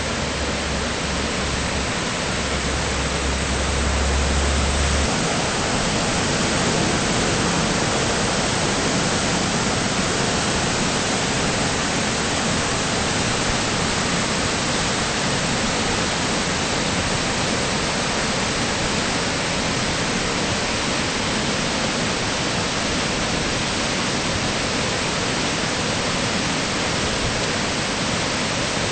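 River in flood rushing through rapids: a steady, unbroken hiss of churning whitewater. A low rumble sits underneath it for the first five seconds.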